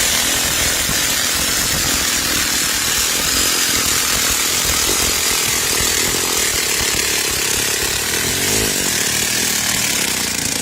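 Cordless power tool running steadily under load, backing a 24-inch steel screw-in tent stake out of hard sandy ground, the stake's thread grinding through the sand; it stops right at the end once the stake is out.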